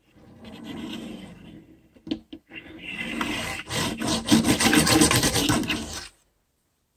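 Close rubbing and scraping right at the microphone, with a couple of sharp knocks about two seconds in. It grows into a loud, fast rasping rush that cuts off suddenly about a second before the end.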